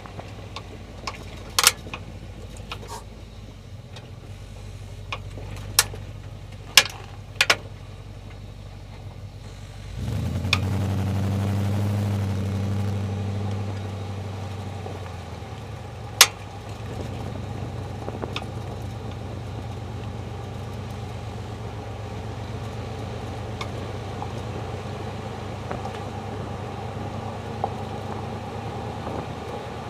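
Jeep Grand Cherokee WJ running steadily, getting louder for a few seconds near the middle. Over it come sharp knocks: several in the first quarter of a minute and one loud one about halfway through, a clunk the owner is trying to trace to the suspension.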